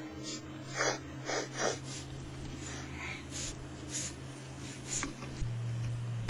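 A few faint, short breathy puffs, like snorts or stifled breaths, over a steady low hum; three stronger ones come close together about a second in.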